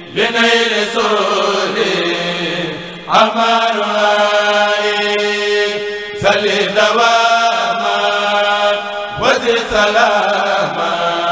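Men's voices of a Mouride kourel chanting a khassida, a devotional Arabic poem, unaccompanied. The chant moves in long held phrases of about three seconds each, with the pitch sliding at the start of each phrase.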